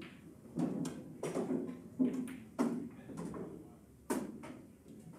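Pool balls and cues in play: a string of about six sharp clacks and knocks at uneven intervals, each ringing briefly, from the cue striking the cue ball, balls colliding, and balls hitting cushions or dropping into pockets.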